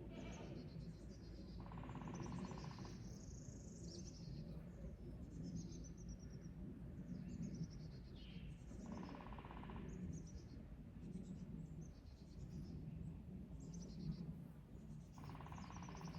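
Wild birds chirping with many short high notes, and a rapid pulsing call repeated three times about six seconds apart, over a low steady rumble.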